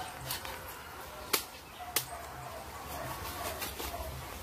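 Three sharp snaps, unevenly spaced, the loudest just over a second in, from knife work on a hog carcass as its hide is being skinned off.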